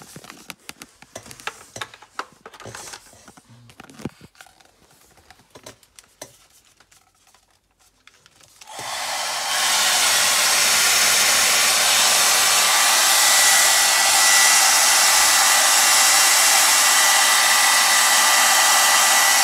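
Clicks and rustles of handling, then about nine seconds in a DEXP hair dryer brush is switched on: its fan motor spins up within about a second and runs steadily, blowing, with a steady high whine.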